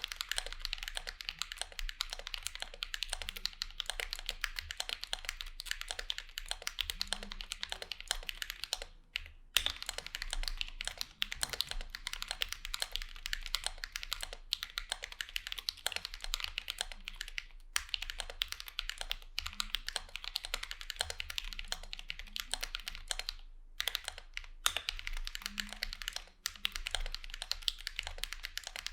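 Fast continuous typing on a mechanical keyboard with lubed Holy Panda tactile switches: a dense run of keystrokes, with brief pauses about a third of the way in, a little past halfway, and near the end.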